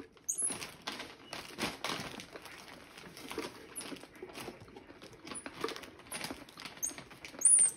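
A pet monkey rummaging for peanuts in a plastic jar and among snack bags: repeated rustling, rattling and crinkling, with several short high-pitched squeaks, the loudest one near the end.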